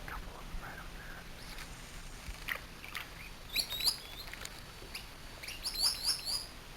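Small birds chirping: two quick high chirps a little past halfway, then a rapid run of several more near the end.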